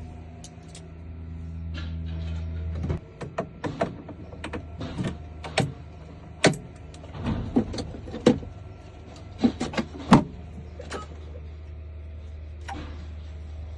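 A steady low motor hum that drops in level about three seconds in, with a series of sharp clicks and knocks from handling hard objects.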